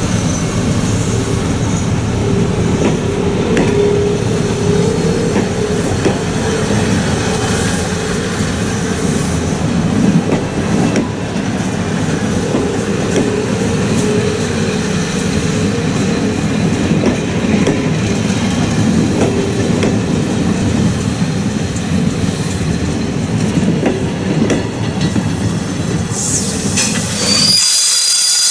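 A train of stainless-steel passenger coaches rolls slowly past at close range, wheels rumbling with occasional clicks over the rail joints. Near the end the rumble drops away as the last coach passes, leaving a thin high-pitched wheel squeal.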